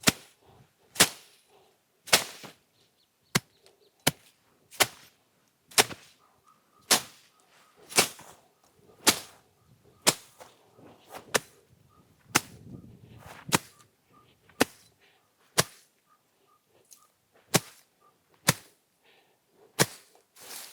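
Steady series of sharp chopping strikes of a hand tool on wood, about one a second with a brief pause near the end.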